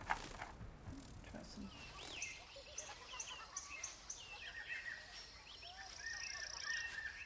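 Faint, layered forest ambience of birds chirping and twittering, joined about halfway through by a steady high insect trill.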